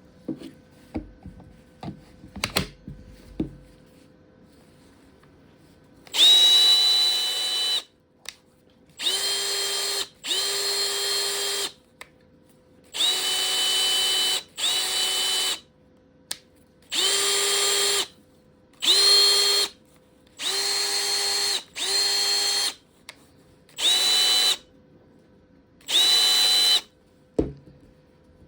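Makita DF470D cordless driver-drill, with no chuck fitted, run unloaded in about eleven short trigger bursts of one to two seconds each, every burst spinning up with a brief rising whine and then holding a steady whine. A few clicks and knocks come first.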